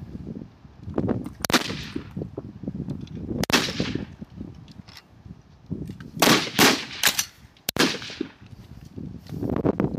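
Rifle shots along a firing line, about six reports, each followed by a short echo, two near the start and four close together in the second half, with wind rumbling on the microphone between them.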